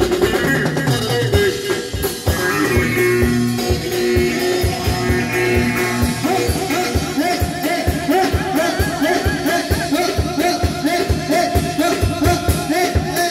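Live band playing halay dance music through PA speakers: a drum kit keeps a steady, fast beat under keyboard and plucked-string melody.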